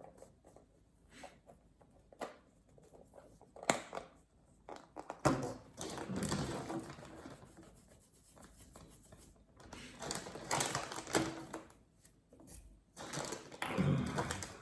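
Small plastic toy capsules and their wrappers being handled on a table: scattered clicks and taps, then three spells of crinkling and rustling about five, ten and thirteen seconds in.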